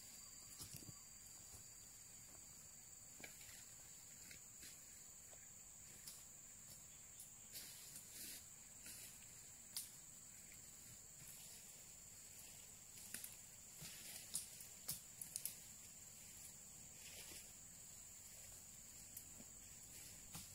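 Faint tropical forest ambience: a steady high-pitched insect drone, with scattered snaps and rustles of someone moving through the undergrowth. A run of sharper cracks comes a little past halfway.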